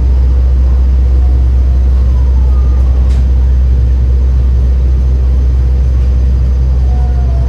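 Steady low rumble of cabin noise inside a moving elevated train, the Palm Jumeirah monorail.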